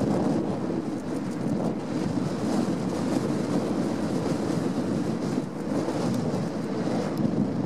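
Boeing 777-200ER's twin turbofan engines running steadily at low power while the airliner taxis and turns, a dense rumble with a constant hum through it. Wind buffets the microphone.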